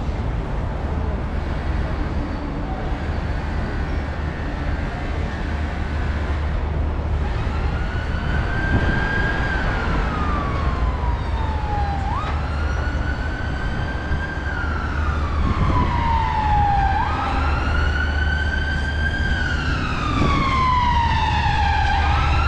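Emergency vehicle siren starting about a third of the way in with a slow wail: each cycle climbs, then falls away slowly before jumping back up, about every five seconds, growing louder. Under it runs a steady low rumble of city traffic.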